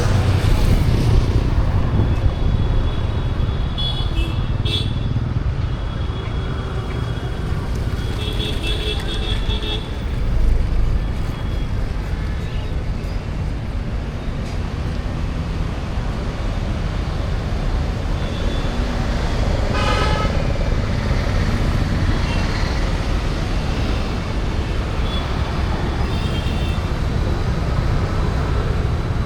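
Street traffic with a steady rumble of engines and tyres, and vehicle horns tooting several times, with a louder honk about twenty seconds in.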